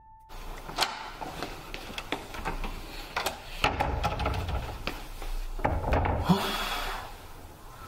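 Irregular taps and knocks with rubbing on a carved wooden door: a run of sharp clicks, then a short scraping hiss about six seconds in.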